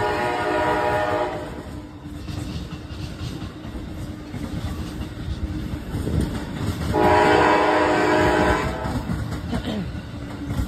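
Amtrak train horn sounding two chord blasts: one of about a second and a half at the start, then a louder one of nearly two seconds about seven seconds in. A passing train's wheels rumble steadily on the rails underneath.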